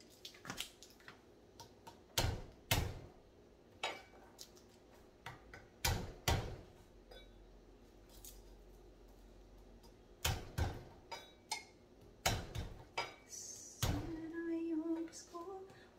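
Kitchen knife knocking and clicking on a cutting board as garlic is cut, in irregular single taps and small clusters rather than a steady chopping rhythm.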